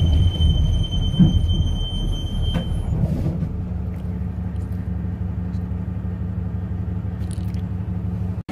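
School bus running, heard from inside the cabin: a heavy low rumble with a steady high-pitched squeal for about the first three seconds, then a steady engine hum.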